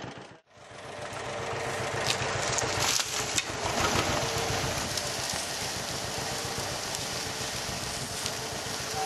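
1949 John Deere BW's two-cylinder engine running steadily as the tractor pulls on a tree-pulling chain. A few sharp clicks come about two to three and a half seconds in. The sound starts after a brief near-silent gap.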